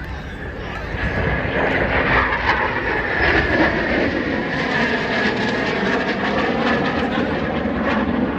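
Eurofighter Typhoon fighter jet's twin jet engines passing, a dense jet noise that swells about a second in and then holds, with a steady high whine over it.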